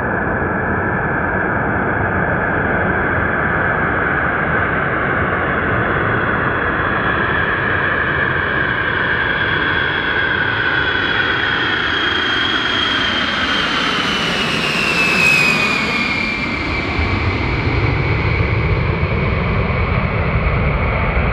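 Boeing 707-based E-8 Joint STARS with four JT3D/TF33 turbofan engines passing low overhead: a loud, continuous jet roar with a high whine that slides down in pitch as it goes by about fifteen seconds in, then a deeper rumble as it moves away.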